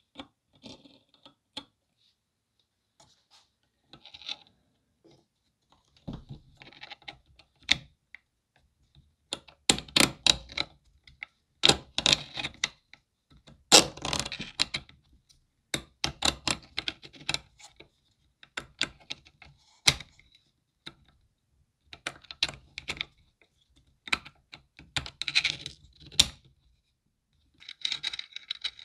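Hand work with tools and small hard parts: irregular clicks, taps and clinks in clusters separated by short pauses.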